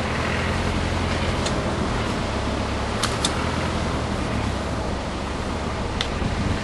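Wind buffeting the microphone in a steady low rushing rumble, with a few sharp clicks: one about a second and a half in, a quick pair near the middle, and one near the end.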